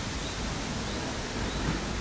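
Steady wind noise buffeting the microphone, a rushing hiss with fluttering low rumble. Faint, short high chirps recur over it every half second or so.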